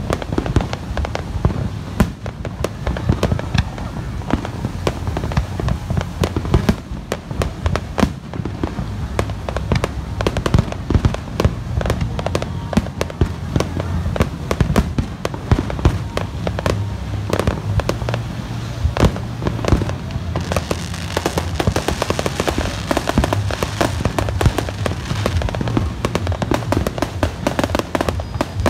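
Fireworks display going off continuously: a dense run of overlapping bangs and pops. Fast crackling thickens through the last third.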